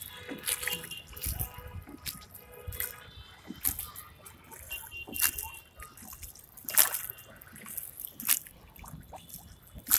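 Wooden oar dipping and pulling through the water beside a small boat, a splash and swish about every second and a half.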